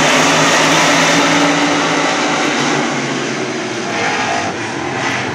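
Race car engines running loud as cars lap the dirt track, a dense steady roar that eases off a little after about three seconds.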